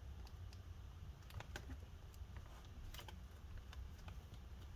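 Faint, irregular small clicks and taps of fingernails and a small screwdriver tip working at a stuck laptop battery connector, trying to lever it out of its socket.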